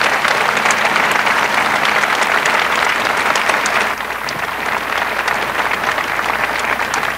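A large crowd applauding: dense, steady clapping that eases slightly about four seconds in.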